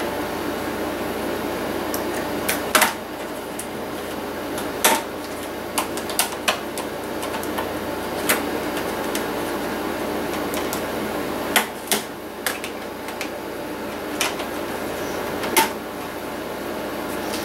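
Plastic snap clips of a laptop's screen bezel popping loose as it is pried off the lid with a plastic pry tool: a dozen or so sharp, irregular clicks, some in quick pairs, over a steady background hum.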